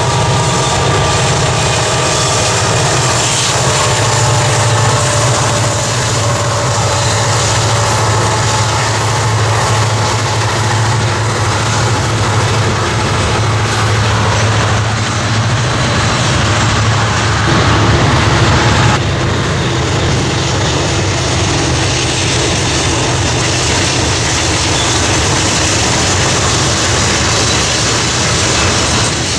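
Freight train rolling past close by: a steady rumble and clatter of hopper-car wheels on the rails under a low diesel drone, with a change in the sound about two-thirds of the way through.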